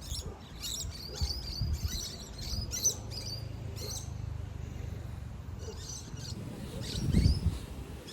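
Small birds chirping: many quick high chirps in a busy chorus over the first three seconds, thinning to scattered calls after. A low rumble runs underneath and swells into a brief louder low bump about seven seconds in.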